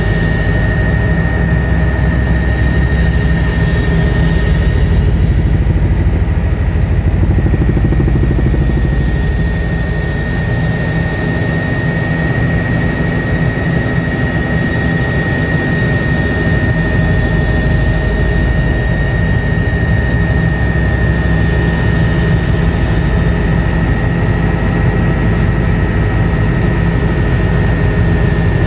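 Helicopter running steadily: a constant high whine over a heavy low rotor and engine rumble.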